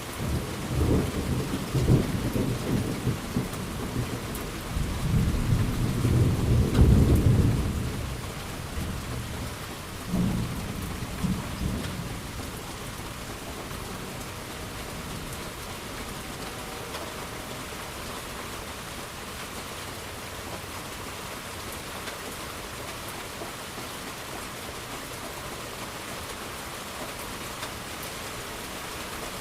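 Steady rain falling with rolling thunder: a long low rumble starts right away, swells loudest a few seconds in, a shorter rumble comes about ten seconds in, and after that only the even hiss of rain remains.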